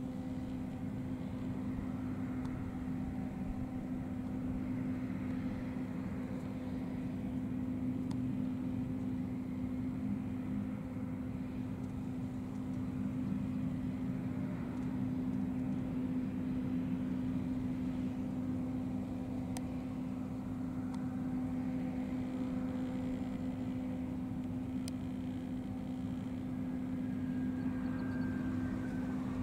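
Steady, unchanging low drone of idling jet aircraft engines, one constant hum with no rise or fall.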